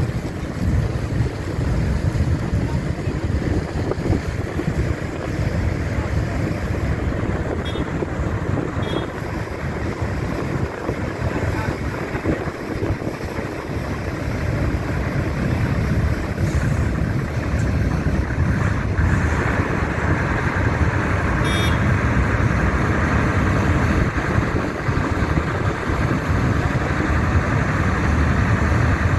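Steady rumble of heavy diesel engines as a lorry drives slowly down a ferry's stern ramp onto the quay, over the running ferry, with wind on the microphone. The engine noise grows fuller about two-thirds of the way in.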